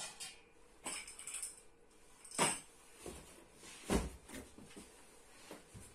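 Scattered knocks and clatters of hard objects being handled, with the two loudest, a sharp knock and a heavier thud, about a second and a half apart mid-way through.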